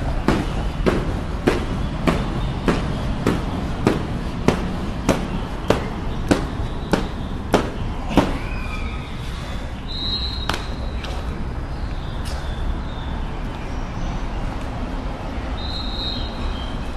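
Heavy battle ropes slapping a hard gym floor in a steady rhythm, about three slams every two seconds, stopping about eight seconds in. A steady low rumble runs underneath.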